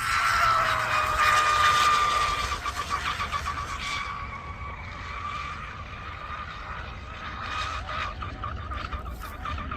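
Scorpion Rigger RC boat's electric motor and stainless propeller running flat out in a high-pitched whine. It is loudest for the first two seconds or so, then drops to a quieter, fluttering whine as the boat runs farther off.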